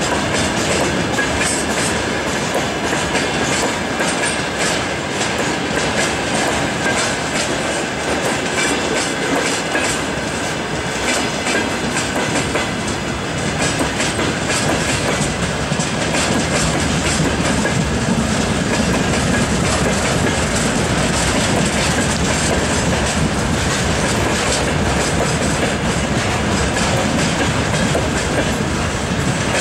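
Freight wagons of a passing train rolling by close at hand: a steady rumble of steel wheels on rail, full of rapid clicks as the wheels run over rail joints, with a faint thin whine running through it.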